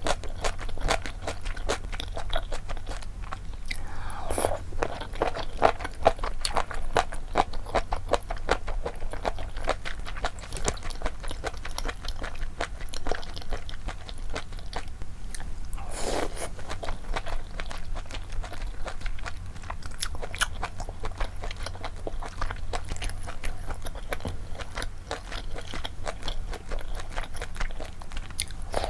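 Close-miked chewing and biting of malatang, a stream of quick, wet mouth clicks, with a longer, louder mouth sound about four seconds in and again around sixteen seconds.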